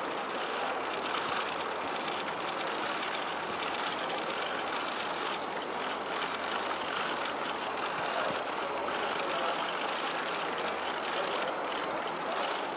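Steady, even rush of outdoor background noise, with no voices standing out.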